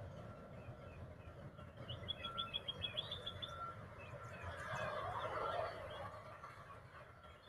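A small bird calling outdoors: a quick run of about eight high chirps about two seconds in, followed by scattered fainter chirps. There is a brief swell of noise a little after the middle.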